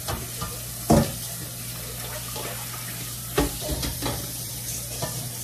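Steady rushing kitchen noise with a constant low hum, broken by two short sharp knocks: one about a second in, the other about three and a half seconds in.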